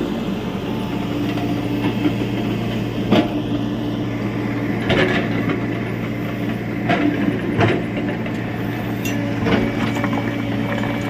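Tata Hitachi EX70 Super Plus excavator's diesel engine running steadily, with several sharp knocks and clatters from the machine working at demolition.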